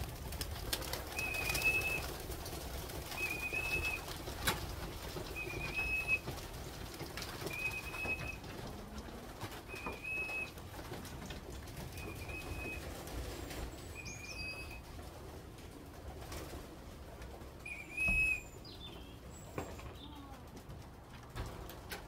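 Racing pigeons flapping their wings as they fly down and land on the loft, with cooing. A short high chirp repeats about every two seconds through most of it.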